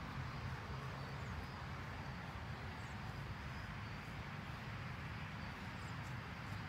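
Steady outdoor ambience: a low rumble and even hiss, with a few faint, short high chirps.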